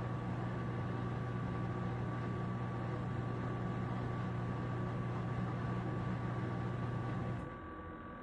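Samsung washer-dryer running its spin cycle, a steady low hum with a faint high whine from the motor and drum, which drops away about seven seconds in. The machine is shaking as it spins, a fault the technician traces to worn-out shock absorbers with no resistance left.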